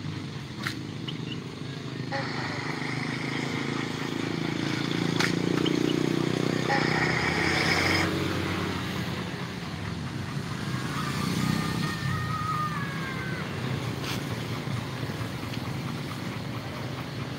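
A motor vehicle's engine running, growing louder about four to eight seconds in and then easing off, with a few faint clicks.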